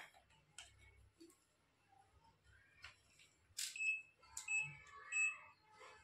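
Digital clamp meter giving three short high beeps in the second half, with a few small clicks from its buttons and test leads as it is handled.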